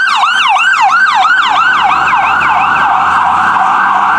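Ambulance siren in yelp mode, a loud falling wail repeating about three times a second. Around the middle it blurs into a steady harsh buzz at the same pitch.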